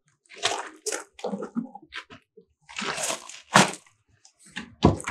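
Rustling and handling noises in irregular bursts, with a few knocks; the loudest is a dull thump near the end.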